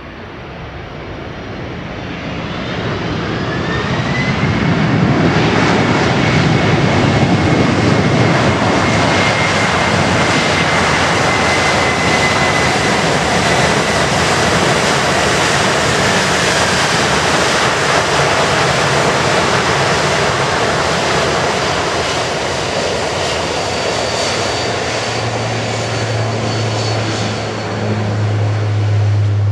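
Boeing 767-300 airliner's jet engines spooling up into full reverse thrust after touchdown. A whine climbs over the first few seconds into a long, loud, steady roar, and the whine fades away around the middle. A low hum comes in near the end as the roar eases.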